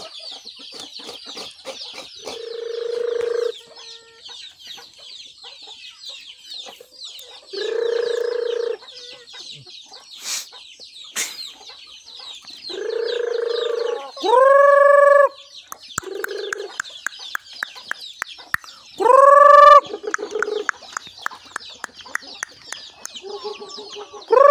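Backyard chickens calling over a constant high chirping of chicks peeping. Several clucking calls about a second long come through, and three loud drawn-out calls stand out, the last near the end.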